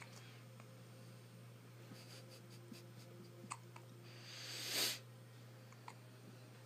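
One-week-old baby hiccuping: a few short, faint hics spread out over several seconds. Just before the five-second mark comes a louder breathy rush that swells for about half a second and then cuts off.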